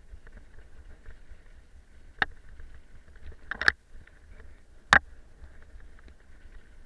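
Mountain bike ridden over a rough, rutted trail: a steady low rattle and rumble from the bike and tyres, with sharp knocks about two seconds in, a quick double knock around three and a half seconds, and another at five seconds as the bike jolts over bumps.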